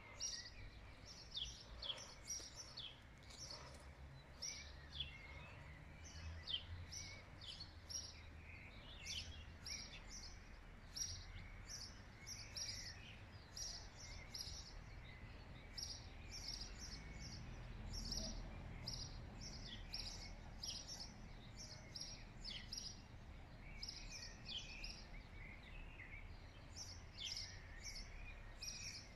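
Small birds chirping and twittering in many short, quick, high notes, several a second, over a low steady rumble.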